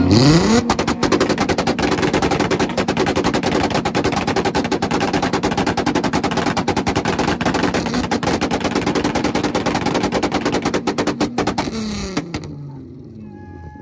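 Car engine held against a two-step launch-control rev limiter, its exhaust firing a rapid, unbroken stream of loud pops and bangs for about twelve seconds; near the end the popping stops and the revs fall away.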